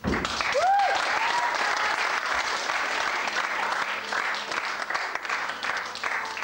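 Audience applauding, starting suddenly, with a couple of short rising-and-falling calls near the start.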